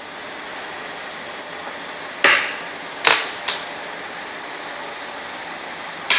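Four sharp taps from play at a makruk board: one about two seconds in, two close together about a second later, and one at the very end, over a steady room hum.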